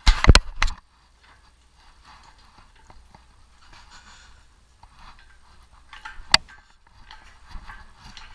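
Metal knocks and clanks from a stripped car body shell and its steel frame being handled: a loud cluster of knocks at the start, one sharp knock about six seconds in, and fainter knocks and rustling between.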